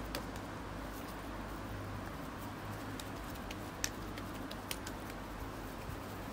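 Light clicks and taps of a knife and hands at a wooden cutting board while ground chorizo is cut and rolled into a ball, over a steady faint hiss; the sharpest click comes a little under four seconds in.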